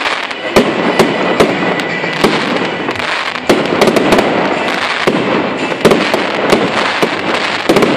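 Aerial firework shells bursting in quick succession: many sharp bangs, several a second, over a continuous din.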